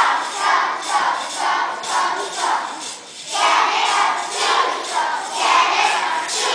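A large group of young children singing together in short, rhythmic phrases, with a brief pause about three seconds in.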